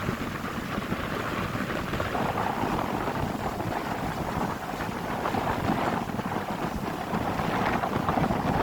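Steady rush of wind and water on board a moving river passenger boat, with wind buffeting the microphone; the hiss grows a little louder about two seconds in.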